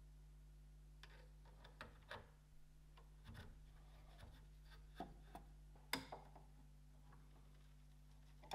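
Faint clicks and rubbing as a small aluminium dial-indicator bracket is handled and fitted onto a 3D printer's toolhead, a few scattered light clicks with the sharpest about six seconds in, over a faint steady low hum.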